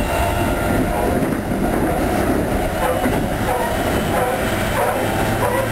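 Keikyu 2100 series electric train accelerating under full power, from inside the car. The Siemens GTO VVVF inverter and traction motors whine over steady wheel and rail running noise.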